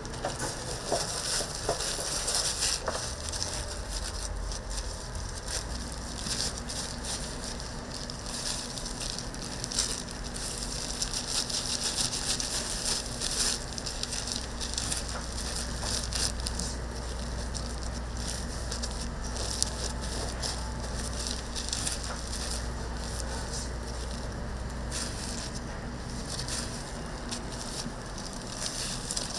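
Cheese stick donuts deep-frying in hot oil: a steady, busy sizzle of oil bubbling around the dough.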